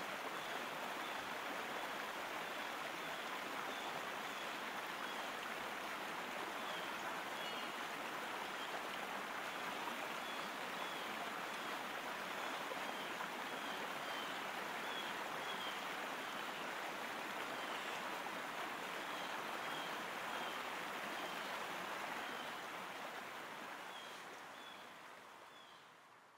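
Steady rush of flowing river water, with faint short high chirps now and then; it fades out over the last few seconds.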